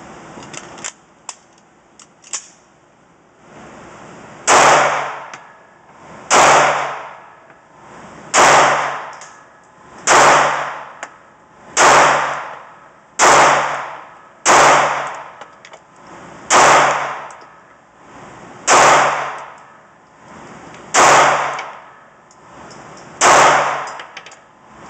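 A semi-automatic handgun fired eleven times at a slow, steady pace, about one shot every two seconds, each shot echoing for about a second. The gun is cycling reliably although it is being run dry, without lubrication. A few small clicks come in the first couple of seconds.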